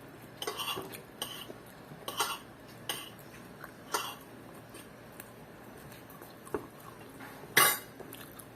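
Spoon and fork clinking and scraping against a plate while eating, a few light clicks in the first half, then one louder sharp clatter near the end.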